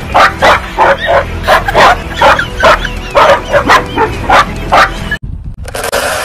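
Husky barking in a rapid string of short yapping barks, about three a second. The barking cuts off abruptly about five seconds in, and a steady hiss follows.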